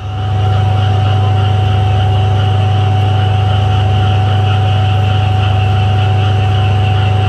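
Diesel engine of a passenger train standing at the platform, running at idle: a loud, steady low hum with a thin, steady whine above it.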